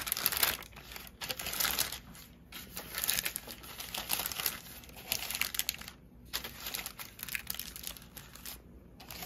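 Parchment paper crinkling as hands press and smooth it into a metal baking tray, in irregular bursts with a couple of short pauses.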